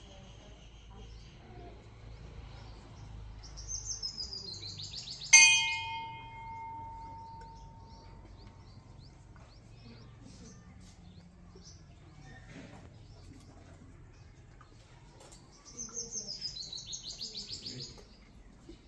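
A metal temple bell struck once about five seconds in, a loud clang that rings on for a few seconds. Just before the strike, and again near the end, comes a high, quick falling run of chirps.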